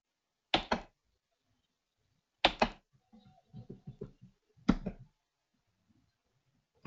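Computer mouse being double-clicked three times, about two seconds apart: each a pair of short, sharp clicks.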